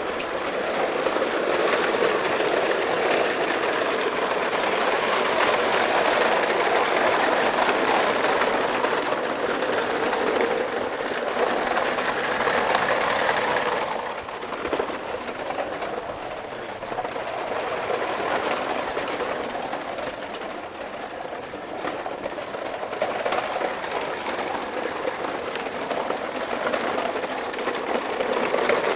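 Plastic toy truck loaded with toy vehicles rolling along, its wheels and load rattling steadily; the rattling eases off about halfway through.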